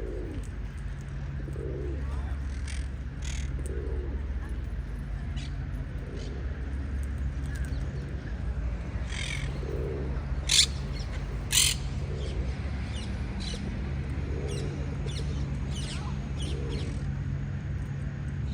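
A parrot giving short, sharp chirps and squawks, with two louder squawks about ten and eleven seconds in, over a steady low rumble.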